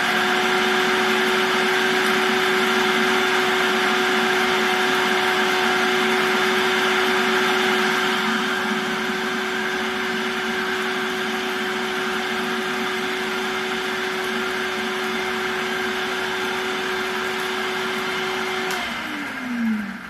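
Electric food processor motor running at a steady high speed, its blade whirling and grinding dried green onion pieces toward a powder. Near the end it is switched off and spins down with a falling pitch.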